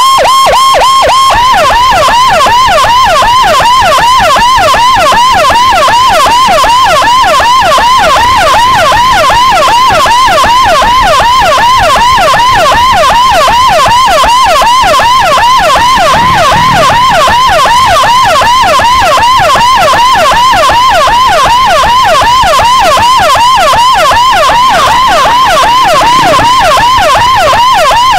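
Loud electronic emergency siren on an escort motorcycle (CJB 200E siren driver through a horn speaker), switching about a second in from a steady pulsing tone to a fast rising-and-falling yelp. It is sounded to clear traffic ahead of an ambulance whose own siren is dead.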